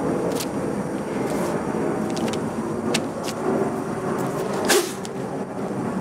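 Steady outdoor background rumble, like distant traffic or machinery, with a few short rustles and clicks from an envelope and paper being handled. The loudest rustle comes near the end.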